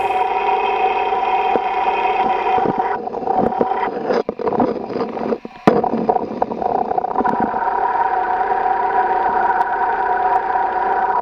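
Running engine's belt-driven accessories heard through a mechanic's stethoscope: a steady whine with several held tones. In the middle it is broken by scraping and clicking as the probe is moved, then the steady whine returns. The noise was traced to a failing alternator.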